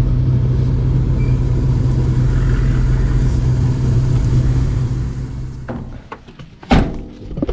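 Steady drone of a Toyota Troop Carrier's engine and tyres on the road, heard from inside the cabin while driving; it fades out about five and a half seconds in. A single loud knock follows about a second later.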